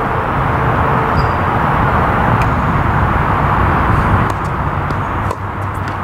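Tennis balls struck by rackets in a rally: a few sharp pops, about two and a half seconds in and again near the end, over a steady rushing background noise.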